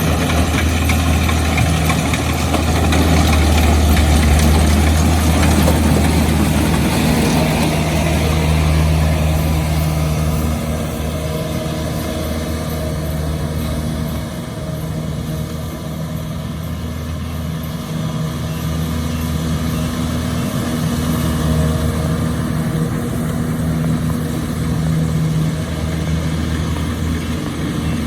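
Engine of a harvesting machine running steadily, a little louder for the first ten seconds and then settling slightly quieter.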